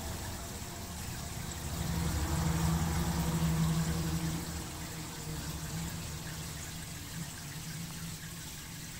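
Reef aquarium's pump and circulating water running: a steady low hum, louder for a couple of seconds around the middle, under an even hiss of moving water.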